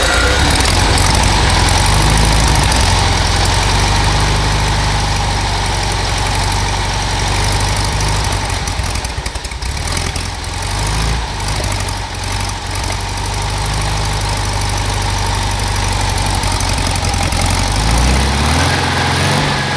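Freshly rebuilt 1954 VW Beetle 36 hp 1192 cc air-cooled flat-four running just after starting, its speed wavering. Near the end the pitch rises as it is revved.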